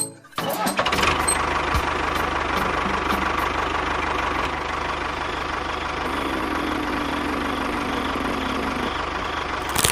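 Small engine running steadily at idle, with an even rapid firing pulse; a low hum joins in about six seconds in and stops about three seconds later.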